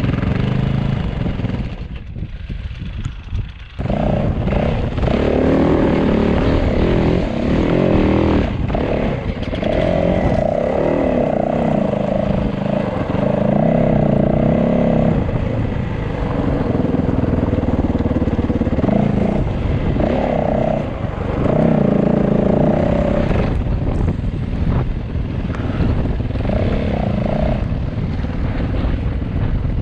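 Enduro motorcycle engine being ridden, the revs rising and falling with the throttle. About two seconds in it drops off briefly, then picks up again.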